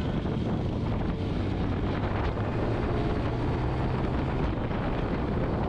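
Motorcycle riding along a road: the engine runs with a steady low hum under wind rushing over the microphone.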